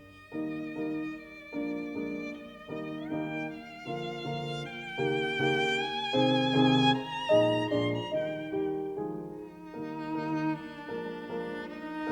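Background music: a sustained melody with vibrato over a repeating accompaniment of shorter lower notes.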